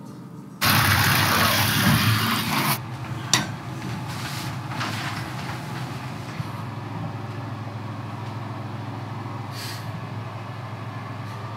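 Loud rush of shower water spraying for about two seconds, then cutting off. A sharp click follows, then a steady low hum.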